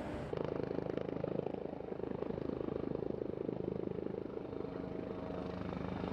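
Firefighting helicopter hovering, its rotor beating in a rapid, steady chop over the engine.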